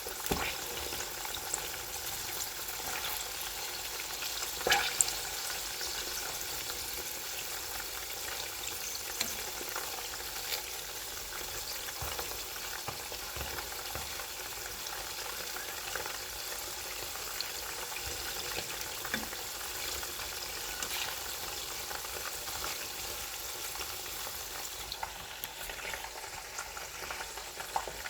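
Food deep frying in hot oil: a steady sizzling hiss with scattered crackles and pops, a few louder pops about five seconds in.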